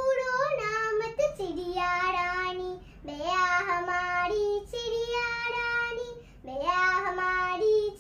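A young girl singing a Hindi children's poem in a sing-song voice, in about five phrases with long held notes and short breaks between them.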